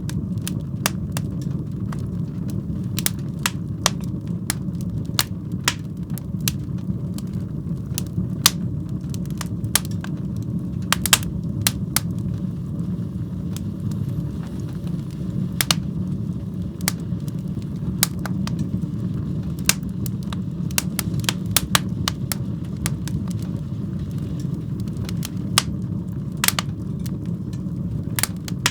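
Fire burning in a fireplace: irregular sharp crackles and pops, several a second in clusters, over a steady low rumble of the flames.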